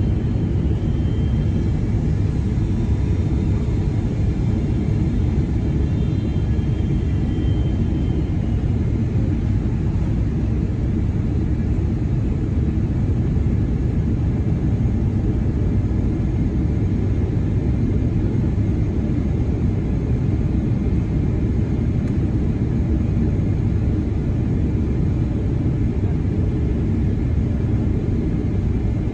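Steady low rumble inside a Boeing 777-300ER's cabin beside the wing during descent on approach: the GE90-115B engine and the rushing airflow. A faint high whine sits over it in the first several seconds, then fades.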